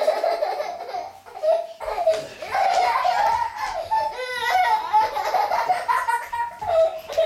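Young children laughing with delight, almost without pause, with a quick run of short laughs about four seconds in.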